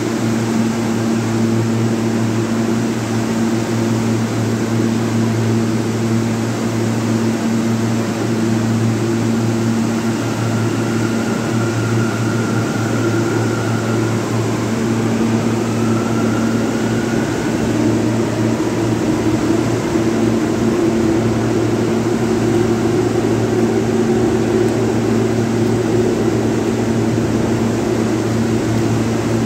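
Steady electrical and ventilation hum of an M subway train standing at the platform. A faint higher whine comes in around the middle, holds, then rises briefly.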